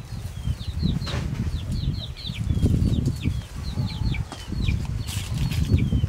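Chicks peeping: many short, high, downward-sliding peeps, several a second, over a heavy, uneven low rumbling noise.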